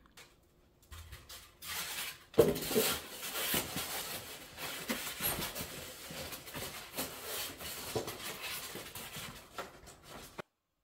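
A mirror and its cardboard shipping box being handled on the floor: a knock about two seconds in, then continuous cardboard rustling and scraping with small knocks, cut off abruptly near the end.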